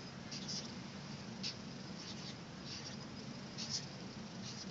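Crayola marker tip scratching on paper as numbers are written: a string of short, high strokes, the loudest near the end, over a faint steady low hum.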